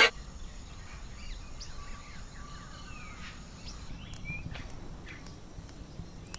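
Music cuts off abruptly at the start, leaving quiet outdoor ambience with scattered bird chirps and calls.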